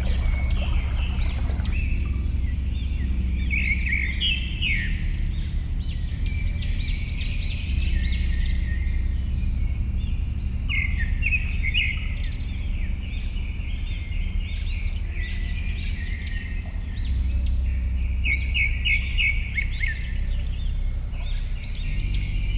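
Songbirds singing, with many short repeated chirps and trills, over a steady low rumble. A hiss of trickling water stops about two seconds in.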